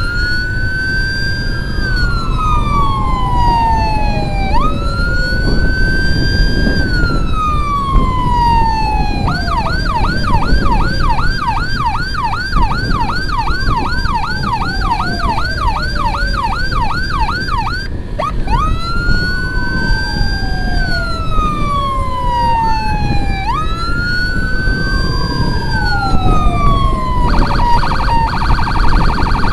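Electronic emergency siren in wail mode: each sweep jumps up fast and slides down slowly over about four seconds. About nine seconds in it switches to a rapid yelp of about three cycles a second, returns to the wail about eighteen seconds in, and ends with a brief fast stutter. Motorcycle road and wind noise rumbles underneath.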